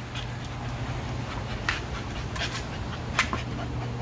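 Dog panting during play, with a few short sharp sounds spread through the middle and late part, over a steady low hum.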